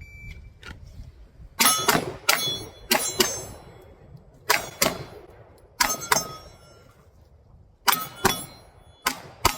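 A shot timer's short start beep, then pistol shots fired in quick pairs, about a dozen in all, with steel targets ringing after the hits.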